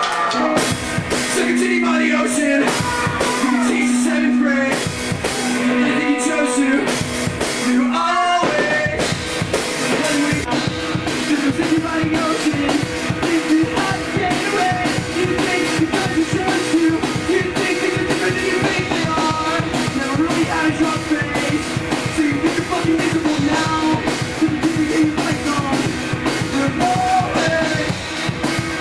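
Rock band playing, with a drum kit and singing. A held low note and scattered hits for the first eight seconds or so, then the drums settle into a steady driving beat.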